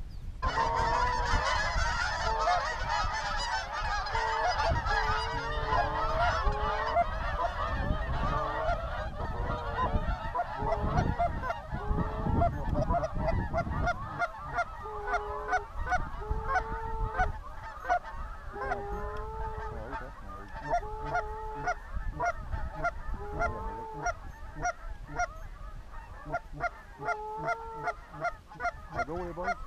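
A large flock of geese honking. Many overlapping voices at first thin out about halfway to separate honks every second or so. A low rumble of wind on the microphone runs under the first half.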